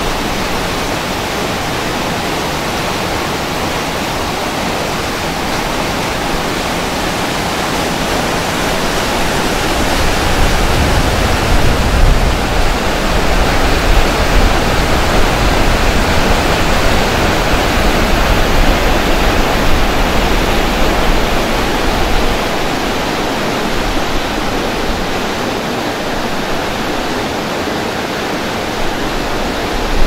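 Waterfall and fast-flowing river water rushing steadily. The sound grows louder and deeper from about a third of the way in to about two thirds through.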